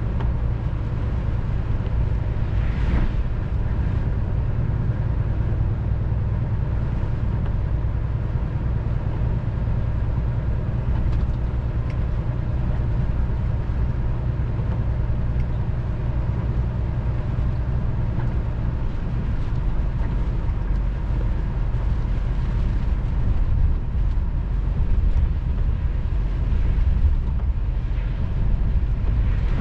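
Inside a lorry cab on the move: the engine and the tyres on a wet road make a steady low drone. It grows slightly louder near the end.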